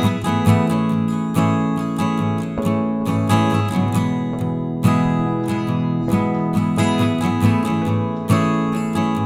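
Background music: steadily strummed acoustic guitar.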